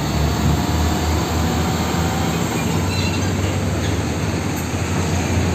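Diesel engine of a fuel tanker tractor-trailer running at low revs as the truck pulls slowly along a road: a steady low rumble with road noise over it.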